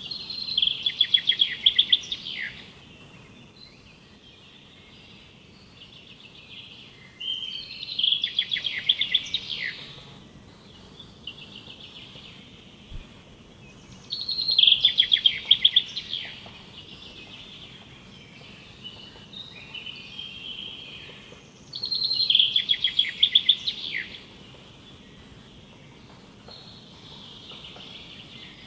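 A bird singing a fast trilled phrase four times, about every seven seconds, with softer calls of other birds in between.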